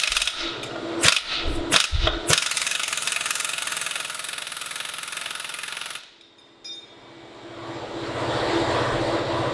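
Air impact wrench hammering on a nut, first in several short bursts, then in one run of about three and a half seconds that cuts off suddenly. A steady machine hum then builds up.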